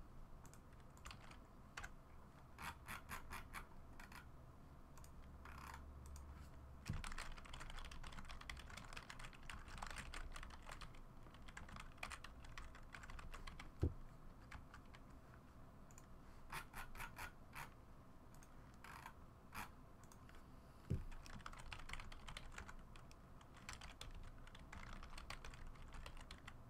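Typing on a computer keyboard in short bursts of quick key clicks with pauses between, faint, with a few single sharper knocks.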